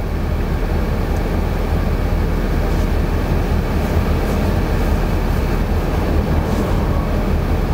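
Steady low rumble inside a car's cabin, strongest in the deep bass, with no clear rhythm or rise and fall.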